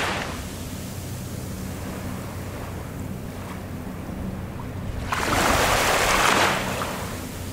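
Small waves lapping on a sandy shore of calm sea, with one wash that swells and fades about five seconds in, over a steady low hum.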